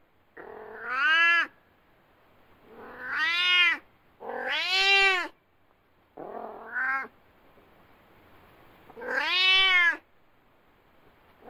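A domestic cat meowing five times. Each meow is drawn out for about a second and rises then falls in pitch, with short pauses between them.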